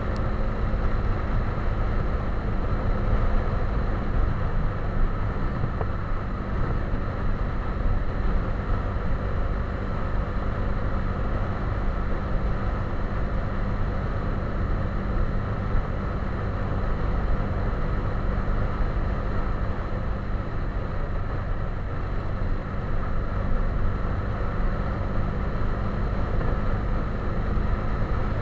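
Motorcycle engine running steadily at cruising speed, with road and wind noise picked up at the handlebars.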